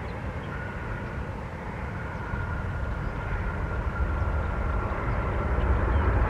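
Twin-engine jet airliner on its takeoff roll, engines running at takeoff thrust: a steady low rumble with a faint high whine, growing louder toward the end.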